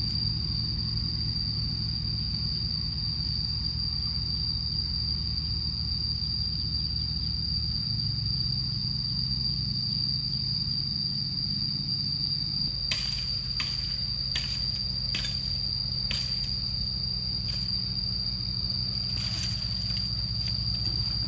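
Insects droning on one steady high note over a low background hum. From about halfway in come a dozen or so short, sharp crackles of dry bamboo stems and leaves being handled and dragged.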